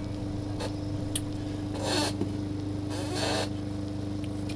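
Steady electrical hum from soldering bench equipment, with two short hissing scrapes about two and three seconds in and a few faint clicks.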